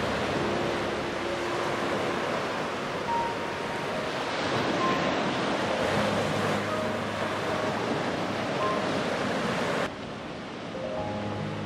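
Sea waves breaking and washing up a sandy beach: a steady, full rush of surf. About ten seconds in, the sound drops suddenly to a quieter level.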